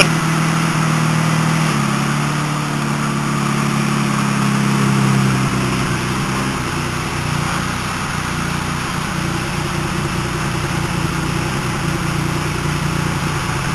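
1993 Ford Probe GT's turbocharged 2.5-litre V6 idling just after a jump-started cold start after winter storage, heard at the tailpipes. Its note shifts about two seconds in, then settles lower and steady around six seconds in.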